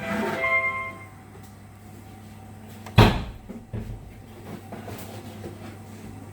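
Washing machine control panel playing a short melody of electronic tones that ends about a second in, then a single loud clunk about three seconds in, with a lighter knock just after.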